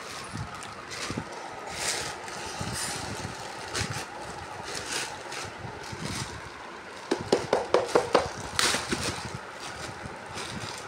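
A plastic courier mailer bag and a clear plastic inner bag crinkling and rustling as hands pull and work at them to open the parcel. A louder run of rapid crackles comes about seven seconds in.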